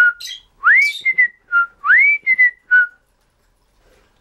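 Timneh African grey parrot whistling a short tune twice: each time a whistle swoops up, then two level notes follow and the last one drops lower. The whistling stops about three seconds in.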